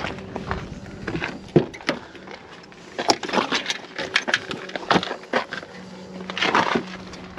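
Segway Ninebot Max G2 electric scooter being ridden: a steady low hum that comes and goes, with irregular sharp knocks and clatters from the scooter jolting over bumps.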